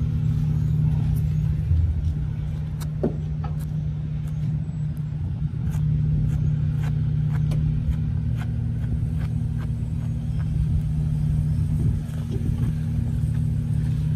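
An engine running at a steady drone, with scattered light clicks and knocks over it.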